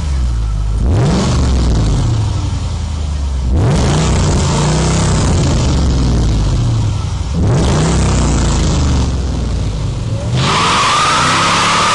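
Mercedes SL55 AMG's supercharged V8 revved hard three times, each rev a rising note, then about ten seconds in the rear tyres break loose and squeal as a burnout starts, with a loud hiss and a high wavering squeal over the engine.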